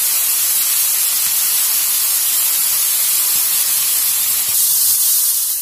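Masala-stuffed mushrooms on toothpicks sizzling in oil on a hot nonstick tawa, a steady hiss.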